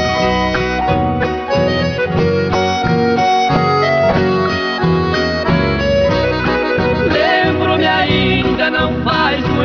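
Background music: an instrumental break between sung lines of a Portuguese-language love song, with a steady beat and a wavering melody line about two-thirds of the way through.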